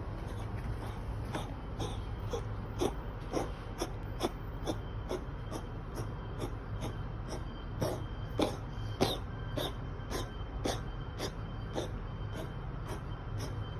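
Cat with asthma coughing in a long, even series of short, sharp hacks, about two a second, over a low steady hum.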